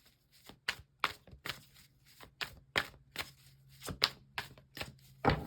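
Tarot deck being shuffled by hand: a run of sharp card slaps and clicks, about two or three a second, irregular, with the loudest one near the end.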